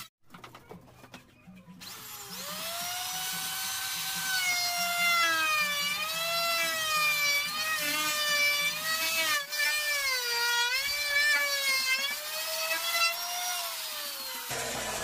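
Electric wood router spinning up about two seconds in, its whine rising and then dipping and wavering in pitch as the bit cuts a tenon in the wood along a jig. The pitch sinks near the end before the sound cuts off.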